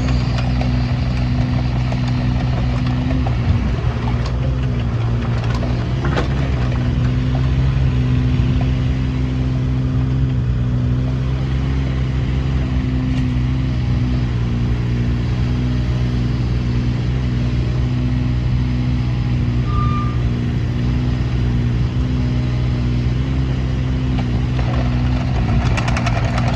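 Kubota KX016-4 mini excavator's small diesel engine running steadily, its note dipping briefly now and then, with a few sharp clicks about 3 and 6 seconds in.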